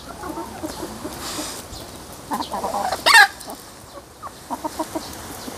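Free-range chickens clucking in short, scattered calls, with one loud, short call falling in pitch about three seconds in.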